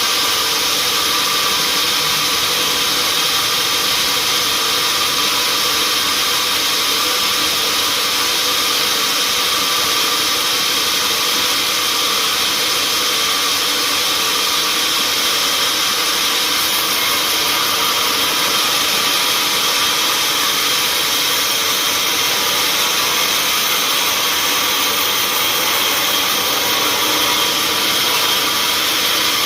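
Sawmill machinery running steadily, a loud even mechanical noise with a few steady whining tones that hold without a break.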